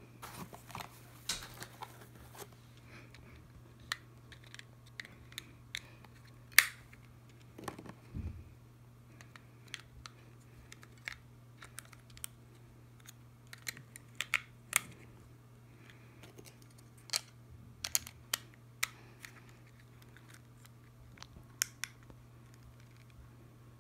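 Scattered small plastic clicks and taps of a fingertip pulse oximeter being handled as its batteries are put in and its clip and battery cover closed, over a steady low hum.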